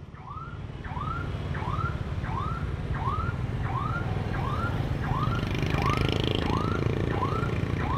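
Motorbike turn-signal beeper chirping as the bike turns, an even rising-and-falling chirp about one and a half times a second, over low engine and wind rumble.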